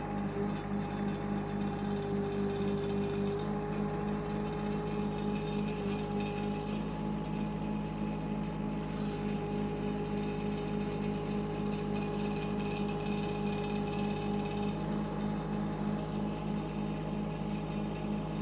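Shanding 1-ton mini excavator running steadily as it works, with a regular low engine pulse under a steady whine from the hydraulics.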